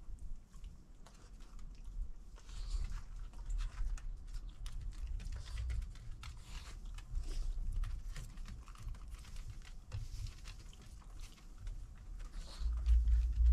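Two dogs eating boiled egg off a wooden deck: many quick, light clicks of chewing and claws on the boards. A low rumble swells near the end.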